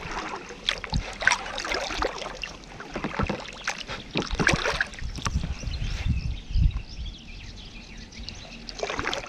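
Paddle strokes of an inflatable packraft: the blades splash and drip in the river in irregular bursts, with a brief low rumble about six seconds in.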